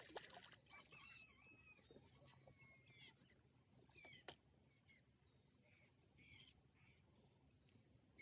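Faint chirping of small birds, with short calls and quick pitch glides scattered throughout; a brief rustle or click at the very start.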